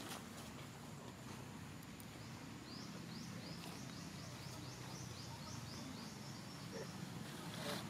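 A bird calling a quick run of short rising chirps, about four a second, from a little under three seconds in to about six seconds, over steady low background noise.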